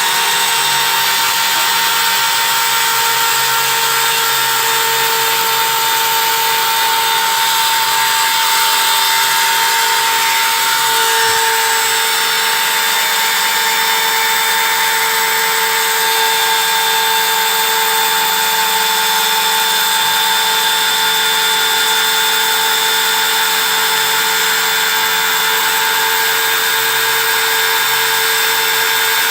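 CNC engraving machine running steadily as it carves, with a constant whine over a loud even hiss.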